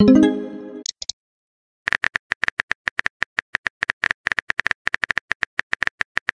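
Chat-app sound effects: a short pitched incoming-message chime that fades out, with two brief high blips just after it. After a pause of under a second, a rapid run of phone-keyboard typing clicks follows as a reply is typed.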